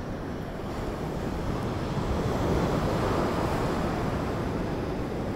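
Sea waves washing on the shore, with wind buffeting the microphone; the wash swells about two seconds in and eases off again.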